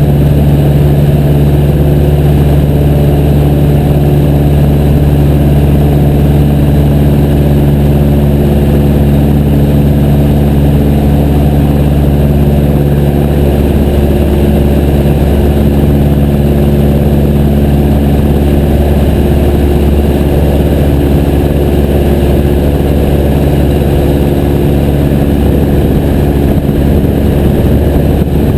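Piper J3 Cub's engine and propeller running steadily, loud and close to the microphone, with a slight shift in tone about halfway through.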